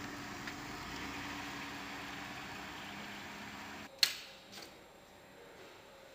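Minivan engine running with a steady low hum and hiss as the van drives off. About four seconds in it gives way to a single sharp click, followed by a quieter indoor hum.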